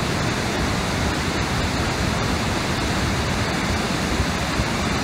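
Large waterfall rushing steadily: a constant, even wash of falling water.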